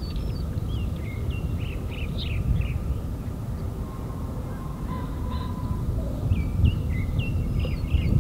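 Small birds chirping in short, quick notes that flick up and down in pitch, in a run near the start and another near the end, over a steady low outdoor rumble.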